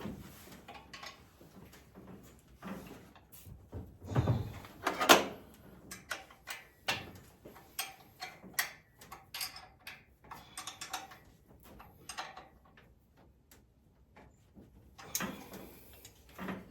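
Metal hand tools knocking, clicking and scraping against engine brackets and pulleys while a belt bracket is pried into line, an irregular run of knocks with the loudest about four to five seconds in.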